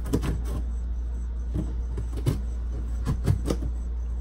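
A cardboard shipping box being handled: a series of knocks and scuffs against the cardboard, several close together near the end, over a steady low hum.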